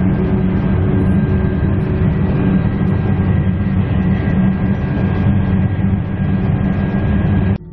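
Interior noise of the six-car electric Tilt Train running along the line: a steady loud rumble of wheels on track with a constant hum and a faint high steady tone. It cuts off suddenly near the end.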